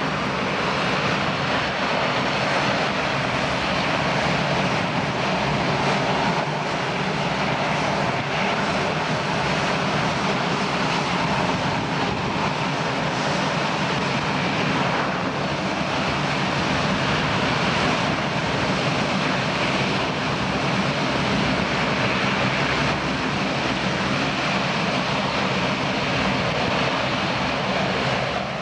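Boeing 787-9 airliner taxiing past with its jet engines at taxi power: a steady rushing noise with a low hum underneath.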